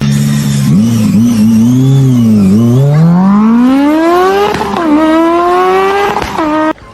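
An engine revving, its pitch wavering and then rising steadily twice before it cuts off suddenly.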